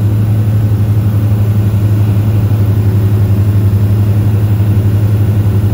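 Cessna 172S's TAE 125-02-114 four-cylinder turbodiesel engine and propeller droning steadily inside the cockpit on final approach. The deep hum holds an even pitch with no change in power.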